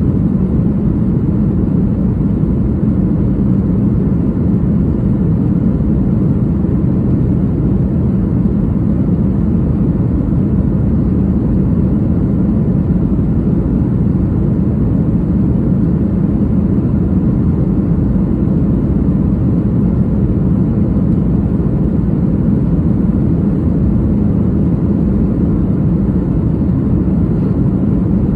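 Jet airliner cabin noise in flight: a steady, even rush of engine and airflow noise, heaviest in the low range.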